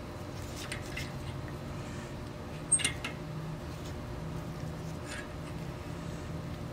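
A few light metal clicks from a spark plug wrench being turned and its bar shifted while a new spark plug is snugged down a half to two-thirds turn past hand tight, the sharpest click about three seconds in. A steady low hum runs underneath.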